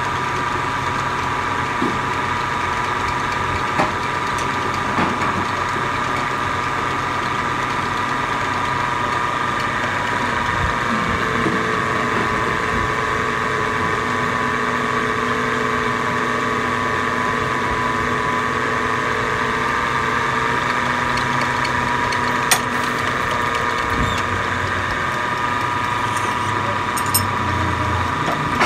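Metal lathe running steadily with a constant whine while machining a pistol barrel blank; a lower hum joins for about ten seconds in the middle, and a few sharp metallic clicks come near the end.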